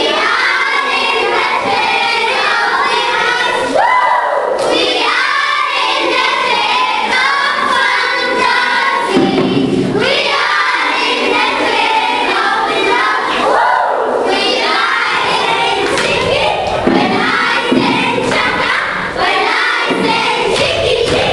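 A group of children singing together in chorus, loud and continuous.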